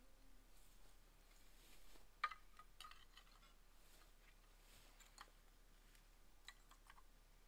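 Faint, sharp clinks of old roof tiles knocking against one another as they are picked up and stacked by hand. The loudest clink comes a little over two seconds in, with a few smaller ones later; in between it is near silence.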